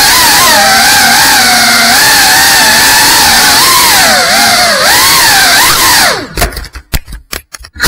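GEPRC Cinelog 35 cinewhoop drone's motors and propellers whining at high speed, the pitch wavering up and down with the throttle. About six seconds in the pitch drops away and the sound breaks into short stuttering blips.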